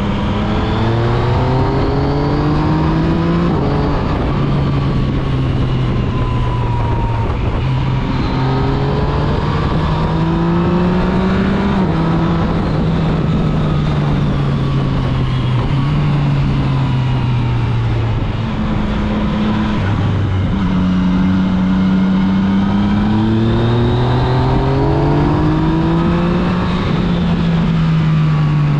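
Yamaha MT-09 SP's inline three-cylinder engine on the move, heard from the bike itself, pulling up through the revs and easing off again and again, its pitch climbing and dropping with throttle and gear changes. A steady wind rush runs underneath.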